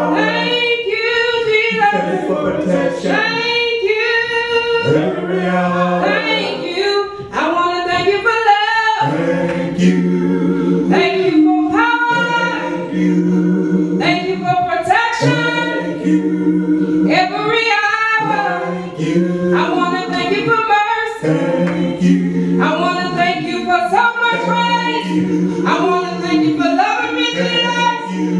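A woman singing a gospel song solo into a microphone, with long held notes.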